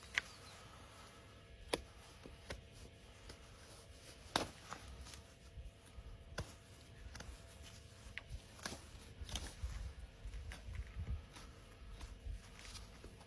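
Sparse sharp clicks and snips, one every second or two, from hoof trimming tools cutting a horse's overgrown hoof.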